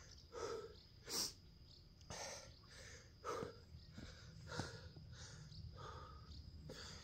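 A man breathing hard, with heavy breaths roughly once a second and one sharper exhale about a second in: he is winded from sandbag conditioning work.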